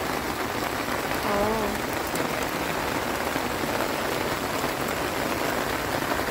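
Heavy rain pouring down steadily.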